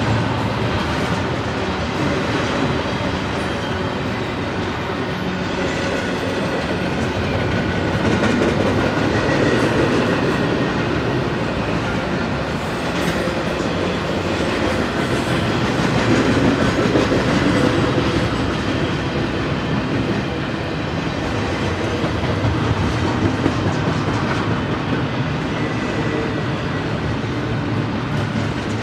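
Double-stack intermodal freight train rolling past, its loaded well cars and containers making a steady, unbroken running noise of steel wheels on rail.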